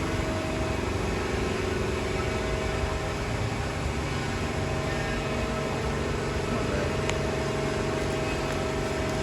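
Steady vehicle noise: a car engine running with a constant, even hum.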